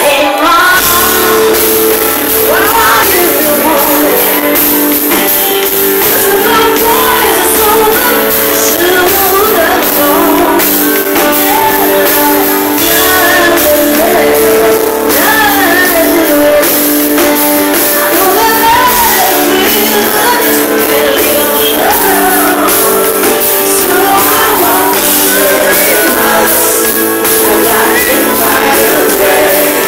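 Live pop band playing loud through a PA: a woman singing lead into a microphone over drums, electric bass guitar and held keyboard chords.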